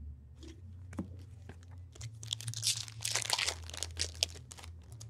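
Wrapper of a 2015-16 Upper Deck Series 1 retail hockey card pack being torn open and crinkled. There is a dense run of crackling from about two seconds in.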